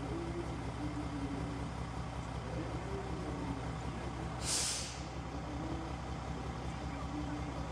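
Passenger railcar at the platform running with a steady low engine hum, and a short burst of compressed-air hiss from its brakes about four and a half seconds in.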